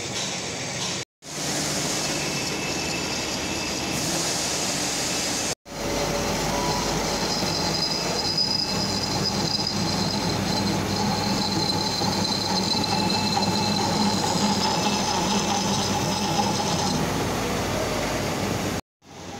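Metal lathe running, spinning a turned steel excavator pin: a steady mechanical drone with a thin high whine over it. The sound cuts out abruptly for a moment about a second in, again about five and a half seconds in, and near the end.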